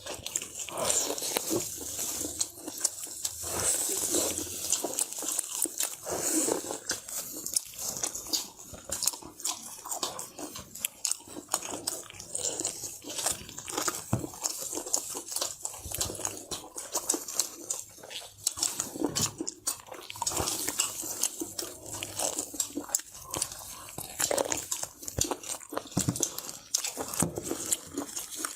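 Close-up eating sounds: a person chewing and biting food, a dense, continuous run of small crackles and clicks throughout.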